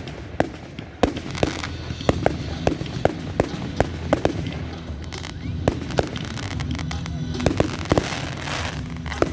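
Fireworks display: aerial shells bursting in quick, irregular succession, a dozen or more sharp bangs, with a spell of crackling near the end.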